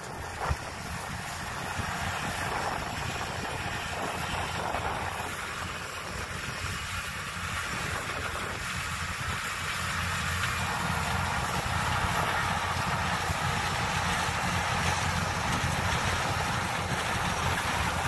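Kubota DC105X combine harvester's diesel engine and threshing machinery running steadily as it cuts rice, growing gradually louder as it approaches.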